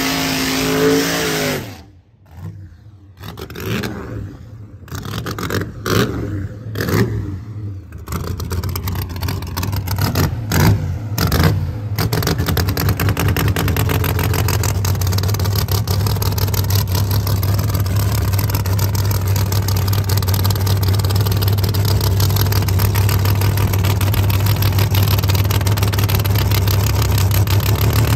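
Drag car engine running: uneven revs and short bursts in the first part, then a steady low drone from about halfway on.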